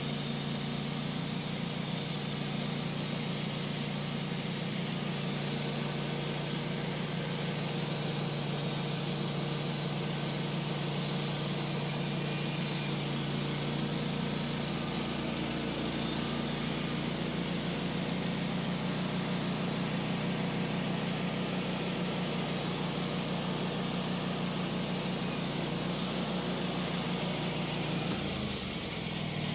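Wood-Mizer LT15 Wide portable band sawmill's engine running steadily under load as the band blade cuts through a crooked black locust log. Near the end the engine note drops.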